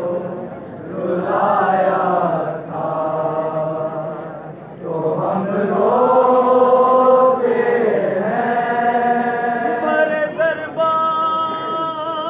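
Male voices reciting a noha, a Shia mourning lament, in long held sung phrases of a few seconds each, with wavering ornamented notes near the end.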